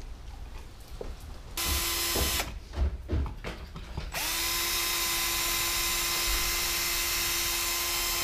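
Cordless drill/driver driving a GFCI receptacle's mounting screws into the electrical box, run in close to the wall. A short run comes about a second and a half in, then a few knocks, then the drill spins up into a long steady run from about four seconds in.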